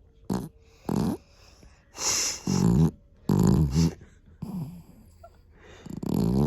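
A Pomeranian–Chihuahua mix dog snoring in its sleep: about six separate snores at uneven intervals, the longer ones in the middle and near the end.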